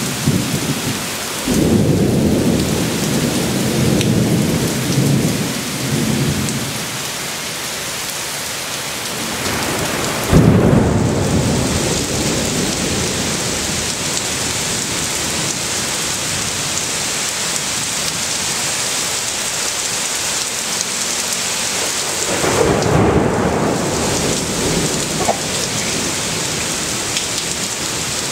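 Heavy rain falling steadily through a thunderstorm, with thunder rumbling three times. The loudest is a sudden clap about ten seconds in; the other two are rolling rumbles near the start and about two-thirds of the way through.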